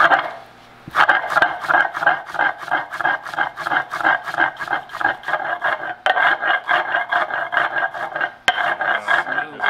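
Stone mano scraped quickly back and forth on a stone metate, grinding cacao into paste: a rasping stroke about four times a second, starting about a second in.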